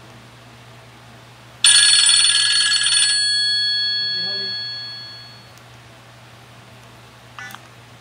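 Nokia 6030 mobile phone's speaker playing one of its alert tones: a sudden ringing tone with a rapid trill for about a second and a half, then fading away over about two seconds. A short blip near the end.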